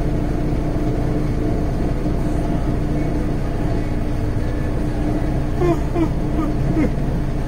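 Semi-truck's diesel engine idling steadily, heard from inside the cab.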